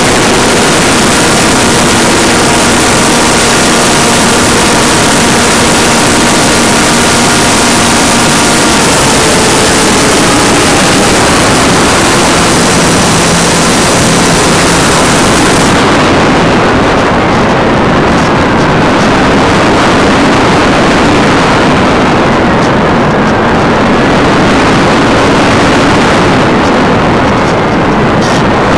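Loud, steady rush of airflow and propeller noise on the onboard camera of an AXN Floater electric RC foam plane in flight. The electric motor's whine holds a steady pitch for the first several seconds and then fades, and the highest hiss drops away suddenly about halfway through.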